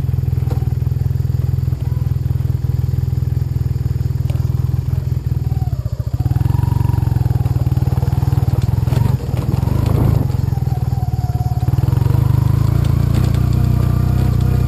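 Yamaha TDM 850 parallel-twin engine running at a steady low idle, then pulling away about six seconds in, louder, with the revs rising and changing as the bike rides slowly over a gravel dirt track.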